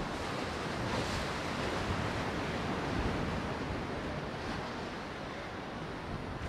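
Baltic Sea surf washing steadily against the pier's breakwater, with wind rushing and buffeting across the microphone.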